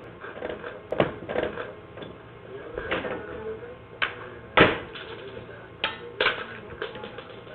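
Irregular knocks and clattering of plastic and metal as a ceiling-mounted security camera is grabbed and yanked at by hand, with the sharpest knock a little past the middle.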